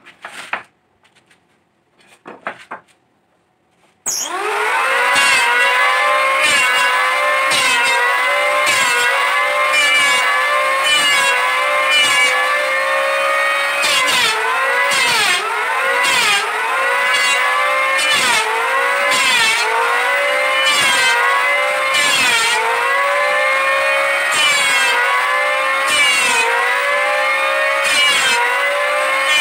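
A few light knocks, then an electric hand planer starts about four seconds in and runs with a loud, high motor whine. About once a second its pitch sags and comes back as the blades cut into the board, with a scraping rasp each time. The planer is set to its shallowest cut depth, zero.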